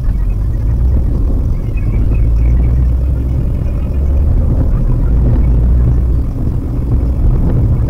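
Steady low rumble of a Maruti Suzuki WagonR's engine and tyres while driving, heard from inside the cabin.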